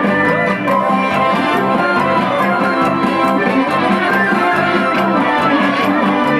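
Lively folk dance music for a circle dance, played over loudspeakers, with a steady quick beat under a sustained melody line.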